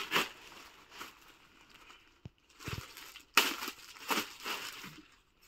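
A jacket being handled and spread out for display, its fabric and wrapping rustling and crinkling in several short bursts, loudest about three and a half seconds in.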